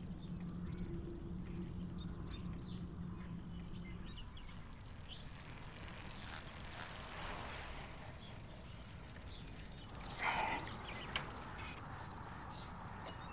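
Faint outdoor ambience: a steady low rumble with scattered short high chirps and ticks. About ten seconds in, a brief louder sound as two bicycles ride past.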